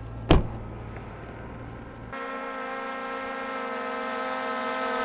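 A sharp knock over a low hum, then from about two seconds in the Skydio 2 drone's propellers whine steadily, growing slightly louder as it hovers close overhead to be caught by hand for landing.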